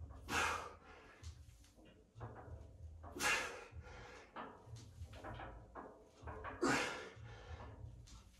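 Repetitions on a plate-loaded lever swing machine loaded with 20 kg: a loud rushing burst with each swing, three times about three and a half seconds apart, with quieter knocks and creaks between.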